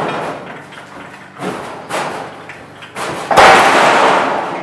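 Stomp shear cutting a sheet of 18-gauge steel: a few light knocks, then one loud clunk about three seconds in as the blade comes down, dying away over about a second.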